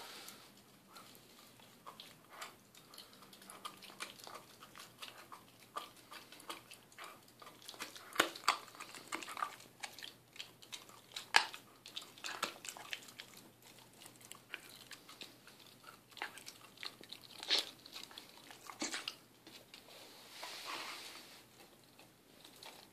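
English cream golden retriever puppy gnawing on a bully stick: irregular crunches and clicks of teeth on the dried chew, with a few sharper bites around the middle.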